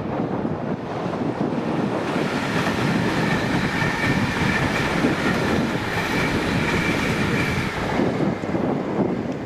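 ScotRail Class 380 electric multiple unit passing over a viaduct, its wheels clattering on the rails. A high steady whine sounds over the rumble from about two seconds in until near the end.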